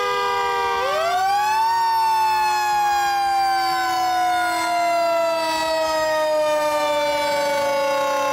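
Two fire-truck sirens wailing together. One falls slowly in pitch throughout; the other winds up quickly about a second in, then glides slowly down.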